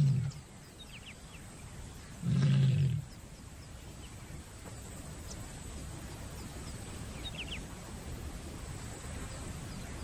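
Lioness in heat calling to attract males: one short, deep call about two and a half seconds in, with the end of an earlier call right at the start.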